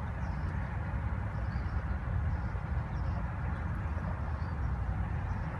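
Wind buffeting a phone microphone outdoors: a steady, gusting low rumble, with faint short high chirps now and then.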